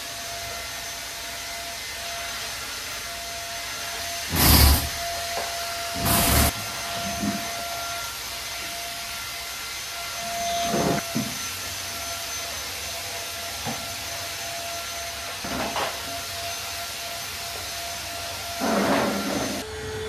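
Vacuum cleaner running steadily with a faint whine. Several knocks and rattles stand out over it, the loudest two about four and a half and six seconds in.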